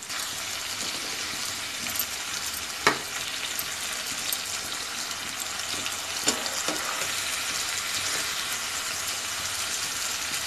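Whole small fish in mustard masala paste sizzling in oil in a non-stick pan, a steady hiss, with a metal spatula knocking and scraping against the pan a few times, the sharpest knock about three seconds in.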